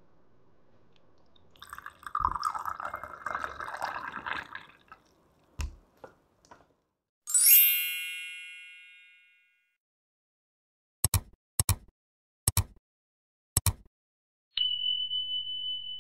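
About two seconds in, a spell of crisp crunching lasts roughly three seconds. Then an edited sequence of sound effects follows: a bright bell-like chime that rings out and fades over about two seconds, four sharp clicks spread over about three seconds, and near the end a steady high beep that starts suddenly.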